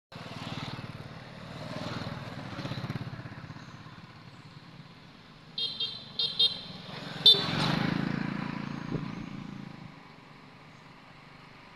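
Motor vehicles driving past on a road, their engines swelling twice as they pass. A horn beeps several short times about halfway through.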